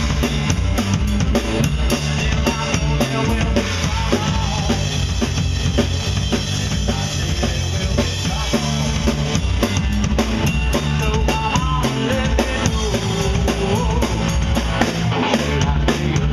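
Live rock band playing: electric bass guitar and a full drum kit with cymbals, keeping a steady driving beat.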